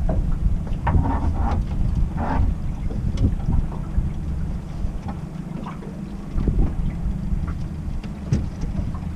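Wind rumbling on the microphone on an open boat, with scattered clicks and knocks from fishing gear being handled.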